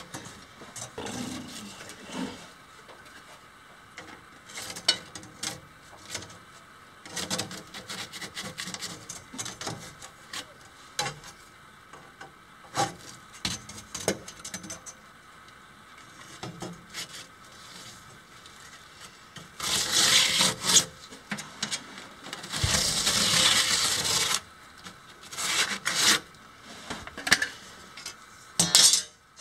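A hand tool scraping and cutting through a gritty panel along a straightedge, in irregular rasping strokes, with two longer, louder runs of strokes about two-thirds of the way through.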